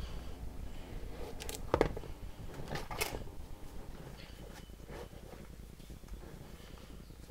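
Black lace-up skate shoes being pulled off and set down on a concrete floor: a few brief knocks and scuffs, the loudest just under two seconds in and another about three seconds in.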